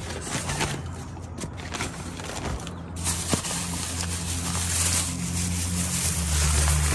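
Car engine running with a low steady hum; about three seconds in, a loud rushing hiss sets in over it and continues.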